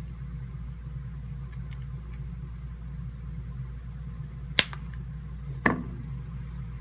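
Wire cutters snipping through 20-gauge coil wire leads: two sharp snaps about a second apart, over a steady low hum.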